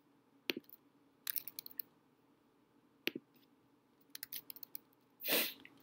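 Scattered sharp clicks and taps of a laptop's keyboard and mouse or trackpad, some single and some in quick clusters, as a user works through web pages. A short rush of breath comes near the end.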